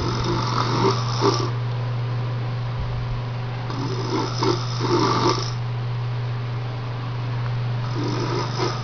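A drunk man snoring, three snores about four seconds apart, over a steady low hum.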